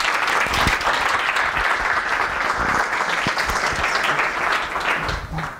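Audience applauding: a dense, steady clapping that fades out near the end.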